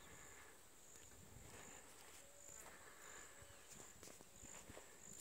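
Near silence: faint outdoor ambience with a faint high-pitched chirp repeating about every two-thirds of a second, a few faint short tones near the middle, and a sharp click right at the end.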